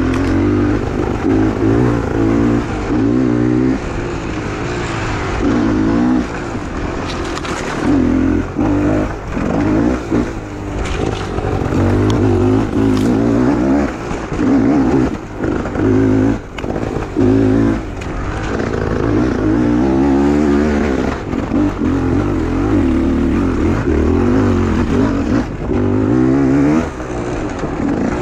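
Two-stroke Beta 300 enduro motorcycle engine under hard riding, revving up and down over and over as the throttle is opened and shut, with a few short knocks along the way.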